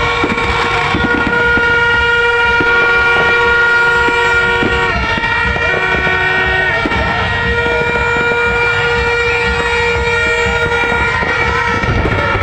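Several horns sounding long, steady notes at different pitches, overlapping, some cutting off and others starting, over a loud, noisy background.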